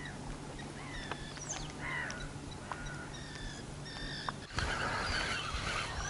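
Birds calling in many short, high chirps and whistles over a faint steady hum. About three-quarters of the way through, a louder rushing noise comes in.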